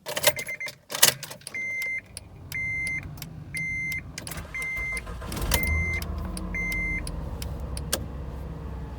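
A couple of clicks, then a car's warning chime beeping at one steady pitch about once a second, six times. About five and a half seconds in, the minivan's engine starts and settles into a steady idle.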